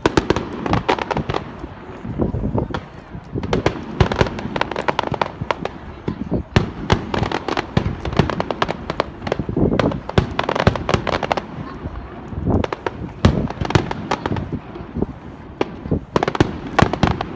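Fireworks display: many sharp bangs and crackles coming in quick, dense clusters.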